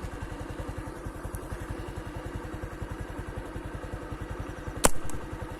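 A small engine running steadily at idle with an even low putter of about a dozen beats a second. A single sharp crack sounds near the end.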